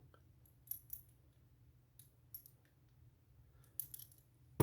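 A few faint metallic clicks and taps from a padlock being handled. They come irregularly, in close pairs about a second in, around halfway and near the end.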